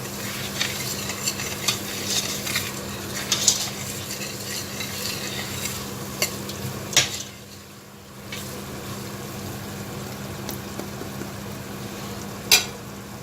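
Onion, garlic and spice masala sizzling as it fries in oil in a pan, with a spoon stirring and clinking against the pan. The clinks come often in the first half, the sizzle dips briefly a little past halfway, and there is one sharp clink near the end. A steady low hum runs underneath.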